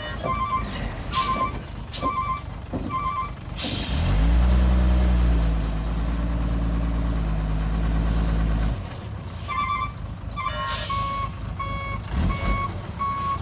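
Heavy machinery at work: a reversing alarm beeping in a steady series, broken by a short air-release hiss and then a diesel engine running loud and steady for about five seconds, after which the beeping resumes.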